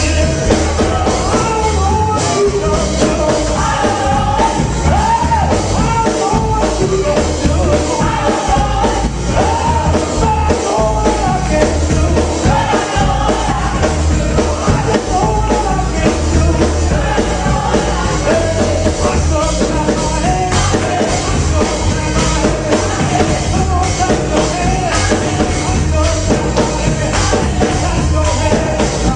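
Church praise band playing live with sung vocals over a heavy bass and drum beat, recorded loud and close on a small camcorder microphone.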